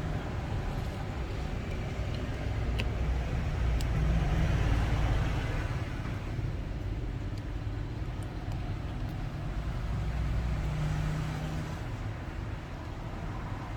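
Steady low rumble of road traffic, swelling about four seconds in and again near ten seconds, with a few faint small clicks.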